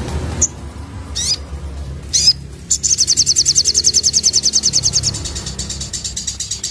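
Crimson sunbird (sogon) singing: a few sharp high chirps, then from about three seconds in a fast rapid-fire trill of high notes, loudest for about two seconds and then running on more softly. A steady low rumble lies underneath.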